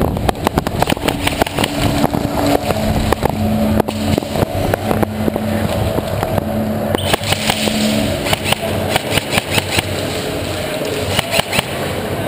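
Running footsteps and gear knocks on concrete, an irregular quick string of sharp taps, over a steady low hum. A brighter hiss joins about seven seconds in.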